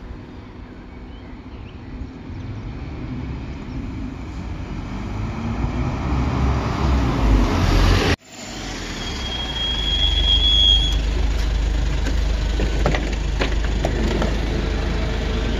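A car drives up and passes close by, its noise building. After a cut, a Mercedes Sprinter minibus pulls up alongside with a brief high brake squeal, then its engine idles steadily, with a few light clicks near the end.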